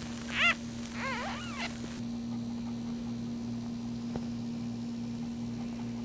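Newborn Maltese puppy crying: one short high squeak about half a second in, then two quick squeaks that rise and fall in pitch.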